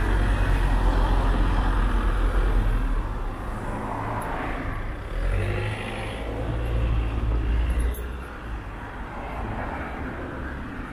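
Road traffic on a busy town street: a low rumble of car engines and tyres, louder for the first few seconds and again around the middle, easing near the end.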